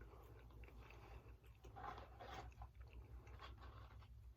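Faint chewing and biting on food, with a few soft crunches, over a low steady hum.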